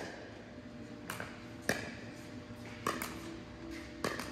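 Pickleball paddles striking a plastic pickleball during a rally: a series of sharp pops, about one a second, echoing in a large hall.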